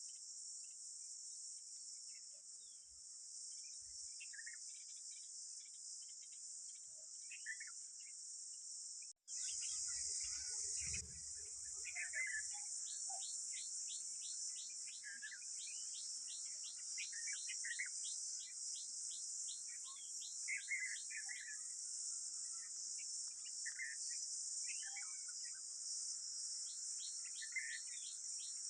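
Steady high-pitched insect drone, like crickets, with scattered bird chirps over it and, in the middle and near the end, fast runs of short downward-sweeping notes.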